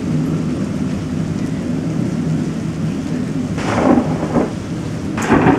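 Thunderstorm: a steady rumble of thunder under rain, with two sharp cracks of thunder, one about three and a half seconds in and another near the end.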